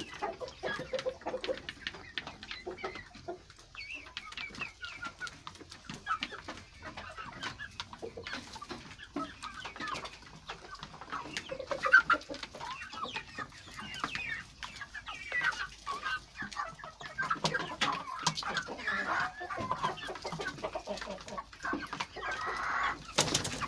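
A flock of three-month-old kienyeji chickens clucking as they feed, with short high calls throughout, over a steady patter of clicks from beaks pecking at plastic feeder trays.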